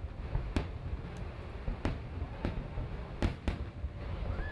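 Aerial fireworks going off: about five sharp bangs at irregular intervals over a low rumble.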